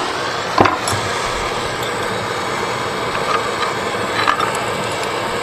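A hand-held gas torch burning with a steady roar. There is a single sharp knock about half a second in, and light metallic clicks later as pliers work the tin-plate tank.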